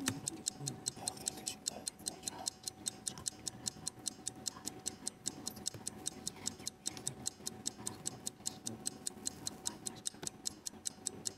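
Quiz-show countdown clock ticking, about four even ticks a second, marking the team's thinking time as it runs down.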